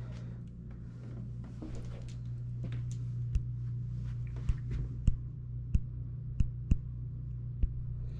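Footsteps: a series of sharp knocks, roughly one a second, starting a few seconds in, over a steady low hum.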